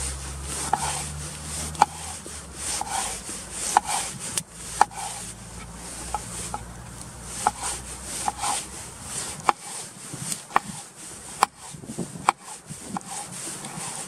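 Kitchen knife chopping peeled tomatoes on a wooden cutting board: the blade taps the board at irregular intervals, roughly once a second, with soft slicing and rubbing between the taps.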